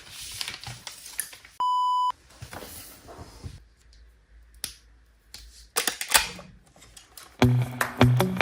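A short, steady electronic beep lasting about half a second, about two seconds in, amid rustling and clicking handling noises. Music with a beat comes in near the end.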